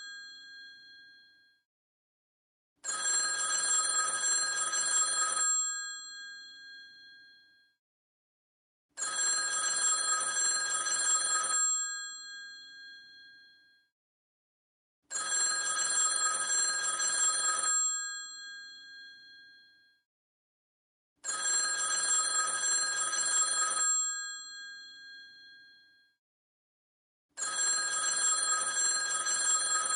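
Old telephone's mechanical bell ringing in bursts of about two and a half seconds, with a short silence between them, repeating about every six seconds. Each burst is a rapid clapper rattle on the bells, which hum on briefly after it stops.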